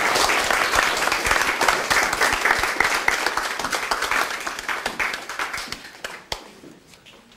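Audience applauding: dense clapping that thins out and fades away over the last few seconds, with one last clap shortly before the end.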